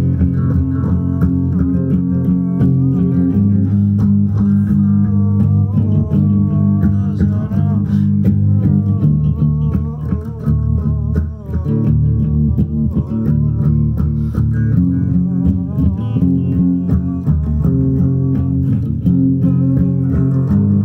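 Guitar being played, picked or strummed through chords that change every few seconds.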